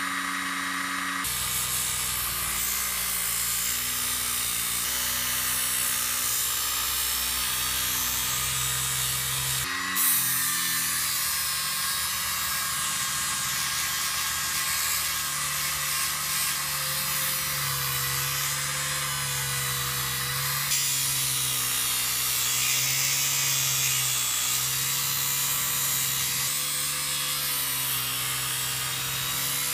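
Small electric motor of a homemade disc grinder running, with a steel rod grinding against its sanding disc: a steady rasping hiss over the motor's hum. The grinding begins about a second in, the motor's pitch wavers slightly as the rod is pressed, and there is a brief knock about ten seconds in.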